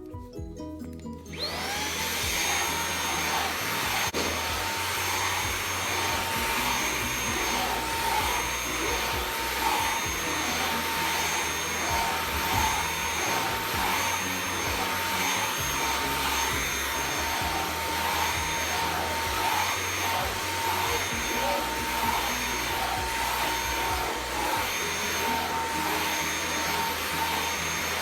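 Xiaomi Mi Handheld 1C cordless stick vacuum switching on about a second in. Its motor whine rises quickly to a steady high pitch, then it runs steadily with a rushing hiss of air.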